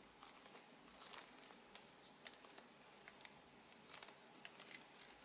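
Near silence with faint, irregular light clicks and taps of hands handling a small toy.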